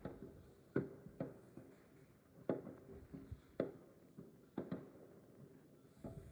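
Distant fireworks going off: about seven sharp bangs at uneven gaps, the loudest about a second in and again near two and a half and three and a half seconds in.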